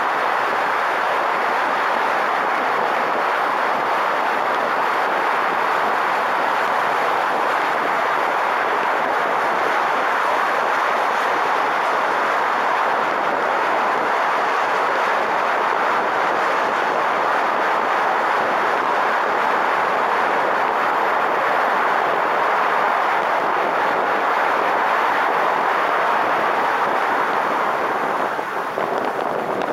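Steady roar of tyres, wind and traffic from a car driving at highway speed through a road tunnel, picked up by a camera at the open sunroof. Near the end the roar turns gustier and uneven as the car leaves the tunnel.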